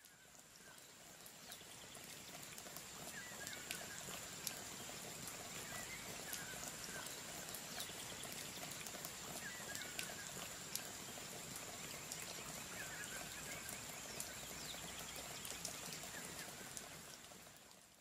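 Rain falling, with scattered drips and a steady high hiss, fading in at the start and out at the end. A short chirping call repeats every three seconds or so.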